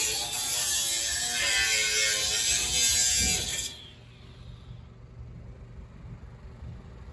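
A power tool runs loudly for almost four seconds with a wavering whine, then stops suddenly, leaving a low steady hum.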